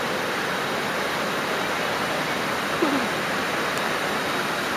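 Steady rush of water pouring down a waterfall, with a brief falling-pitched sound about three seconds in.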